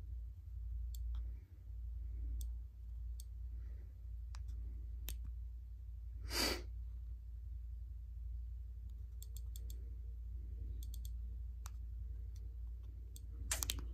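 Second-generation iPod nano click wheel's built-in clicker ticking as the thumb scrolls and presses to answer its music quiz: scattered single clicks and quick little runs of them. One brief, louder burst of noise comes about six and a half seconds in.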